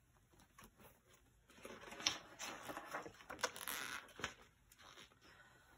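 Paper pages of a picture book being leafed through and turned, a rustle lasting about two and a half seconds from just under two seconds in, with a few sharp page snaps.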